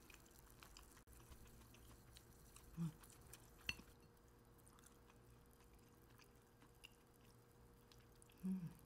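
Faint sounds of a person eating grilled flounder with chopsticks, chewing and biting the flesh off the fish's bones, with a small click about three and a half seconds in. There are two short hums, one near three seconds and one near the end.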